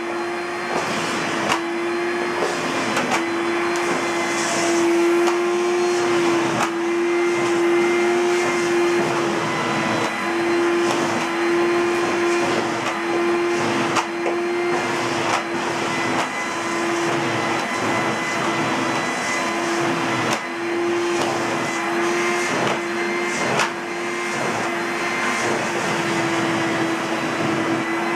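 Philips HR6242 (P42) vacuum cleaner's 700 W motor running steadily: a constant hum of even pitch over rushing air, with a few light clicks or knocks now and then.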